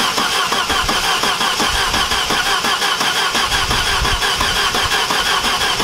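Saab Viggen turbo four-cylinder engine being cranked on the starter motor in an even, steady rhythm without catching: no fuel is reaching the engine.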